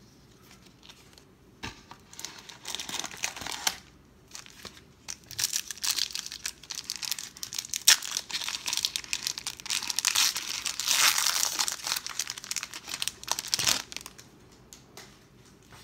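A foil 1992 Pro Set NFL Series 1 card pack being torn open and crinkled by hand: irregular spurts of crinkling and tearing foil, densest a few seconds before the end, with one sharp crack about halfway through.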